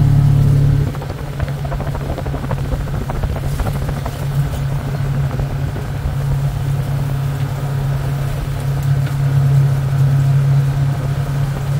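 Engine and road noise heard from inside a moving vehicle: a steady low drone with scattered light rattles and knocks, dipping slightly in level about a second in.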